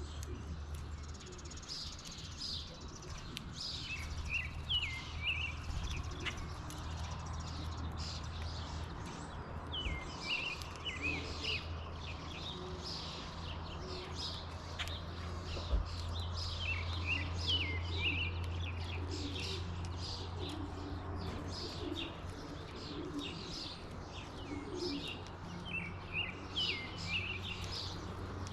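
Wild songbirds at a backyard seed feeder chirping, many short high calls overlapping throughout.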